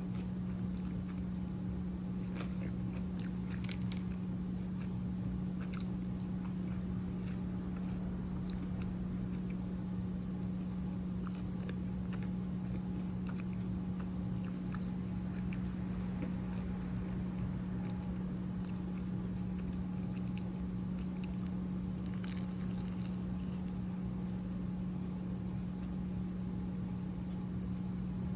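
Close-miked eating: biting and chewing with scattered crisp crunches, over a steady low hum.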